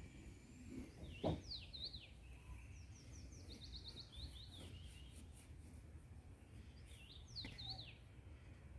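A songbird singing: a phrase of quick falling whistled notes about a second in, a rapid trill of repeated notes, and the same phrase again near the end. A short knock comes with the first phrase, over a steady low rumble.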